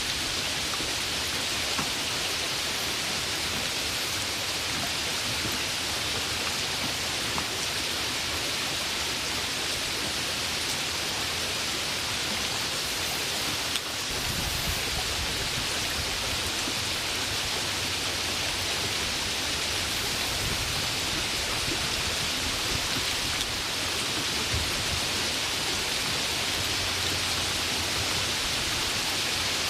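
Steady, heavy rain falling: an even, dense hiss of many drops. A low rumble joins underneath about halfway through.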